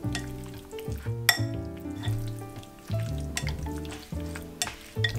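Chopsticks stirring raw sliced beef in a wet marinade in a glass bowl: a squishy stirring noise with a few sharp clicks of chopsticks against the glass, the loudest about a second in. Background music with a bass line plays throughout.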